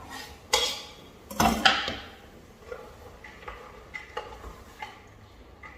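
Kitchen utensils knocking against a pot or cutting board while cooking: two sharper knocks in the first two seconds, then a series of lighter, irregular taps and clicks.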